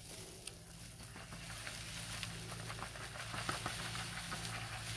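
Dry wood-chip mulch crackling with light, irregular pattering as it is disturbed, over a steady low hum.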